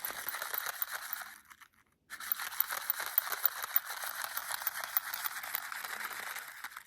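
Close-up crinkling and crackling of plastic packaging being handled, in two stretches with a brief pause about two seconds in.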